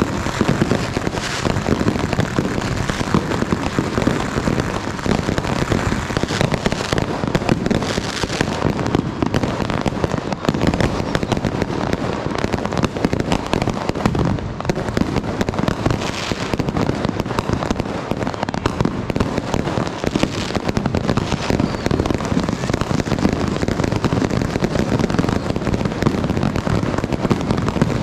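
Firecrackers and fireworks going off without a break: a dense, steady crackle of many small bangs.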